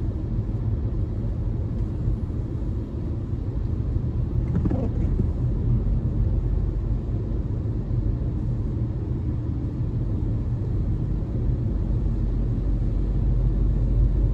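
Steady low rumble of a car driving on a rain-wet highway, heard from inside the cabin: engine and tyre road noise.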